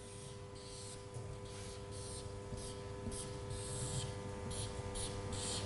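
Marker pen drawing on a whiteboard: a quick string of short strokes of the tip across the board, faint, over a steady low hum.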